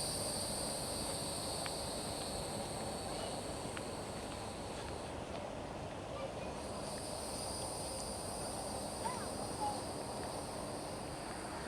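Outdoor ambience with insects chirring: a steady high buzz that drops out for about two seconds midway, then resumes, over a low even background hum.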